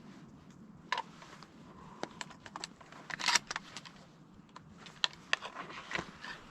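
A series of small, irregular clicks and knocks from gear being handled close to the microphone, with the busiest clatter about three seconds in.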